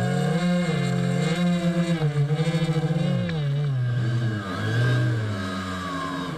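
Brushless electric motors (Turnigy 2822 1400kV) spinning the RC boat's air propellers, whining with pitch rising and falling as the throttles change, the forward pair run at different speeds for steering. About two seconds in the motors beat against each other in a fast wobble, and the pitch settles lower near the end.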